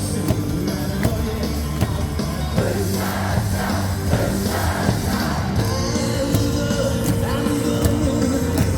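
Music blaring over a baseball stadium's loudspeakers with a crowd singing and shouting along to a cheer song.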